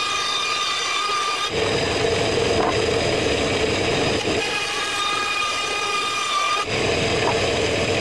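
Band saw running and cutting a curve through a plywood sheet, a steady motor whine with the blade's rasp, shifting abruptly about a second and a half in and again near the end.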